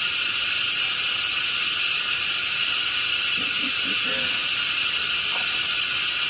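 Steady high-pitched buzzing hiss of a forest insect chorus, typical of cicadas, holding one level throughout. A few faint short low calls come in about three and a half to four seconds in.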